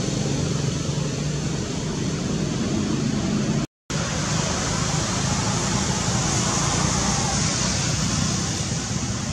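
Steady outdoor background noise with a low hum underneath. It cuts out for a moment a little before four seconds in.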